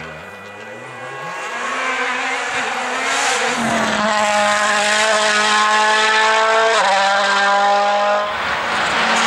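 Rally car's turbocharged four-cylinder engine accelerating hard, its note climbing steadily and dropping sharply at a gear change about seven seconds in, with tyre and gravel hiss under it; the low engine note breaks off abruptly near the end.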